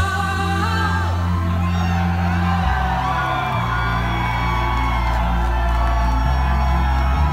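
Live synthwave song: a synth bass holds long low notes that change pitch every second or few, under a male singer's long, gliding vocal line.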